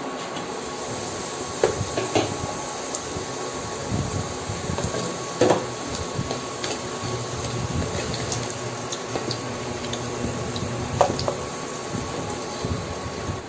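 Potato chunks frying in oil in a stainless steel pan: a steady sizzle, with a few clinks and knocks of the glass lid and a wooden spatula against the pan, the loudest about five and a half seconds in.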